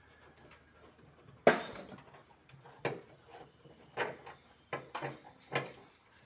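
Sharp metallic clanks and clinks from hand tools and metal parts in a car workshop. One loud clank comes about a second and a half in, then about five lighter knocks at uneven intervals.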